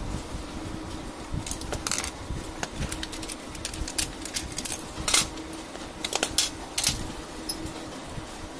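HP LaserJet fuser assembly being taken apart by hand: its plastic housing and small metal parts give a series of sharp clicks and clatters as it is pried and pulled apart, loudest a little past the middle, over a steady hum.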